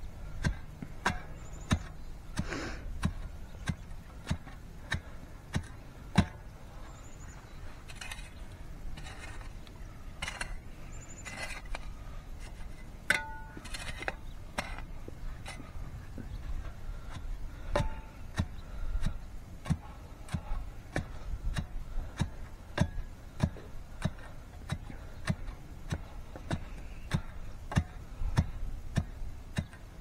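Shovel tamping and scraping soil packed around a pipe in a post hole: a string of sharp, irregular knocks, about one or two a second.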